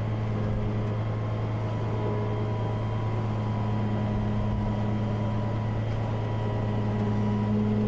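Flatbed tow truck's engine running with its hydraulics engaged, a steady hum, as the rollback deck is tilted up.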